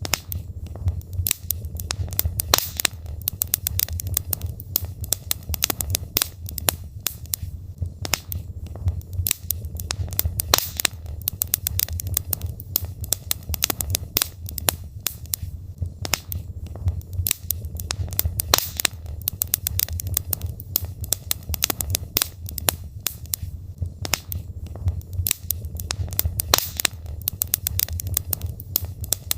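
Wood logs burning in a fireplace: frequent, irregular sharp pops and crackles over a steady low rumble of the fire.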